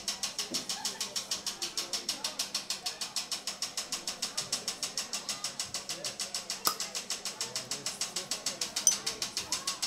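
Electronic noise loop from a live experimental noise set: a steady, rapidly pulsing hiss at about four pulses a second, over a low hum, with a couple of sharp clicks near the end.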